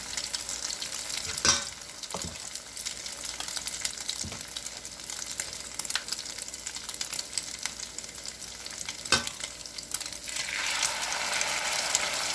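Egg foo young batter frying in hot oil in a frying pan: a steady sizzling crackle with a few light knocks, the sizzle getting louder near the end.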